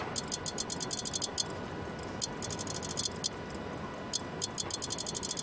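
Rapid runs of sharp, high-pitched electronic clicks from an interactive bamboo installation, several to about ten a second, over a faint steady hum. A dense run at the start stops about one and a half seconds in, a shorter run comes near the middle, and another dense run starts about four seconds in.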